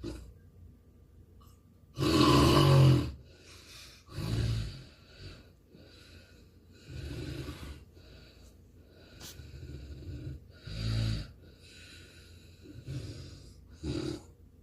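A man snoring in deep sleep, about seven rough snores at an uneven pace; the first, about two seconds in, is the longest and loudest.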